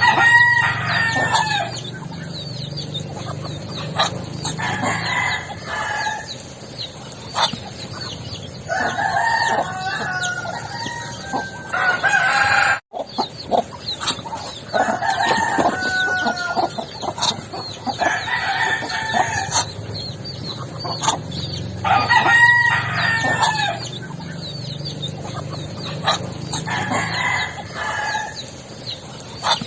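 Backyard poultry calling over and over, a drawn-out pitched call every few seconds, with a sudden brief break in the sound about 13 seconds in.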